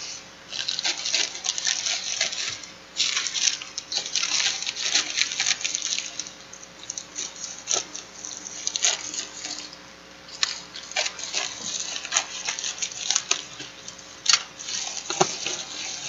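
A plastic bubble-wrap mailer crinkling and rustling in irregular bursts with sharp crackles as hands handle and open it.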